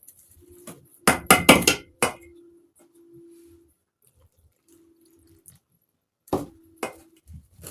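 Whisk clinking and knocking against a mixing bowl: a quick cluster of sharp knocks about a second in, then two more near the end.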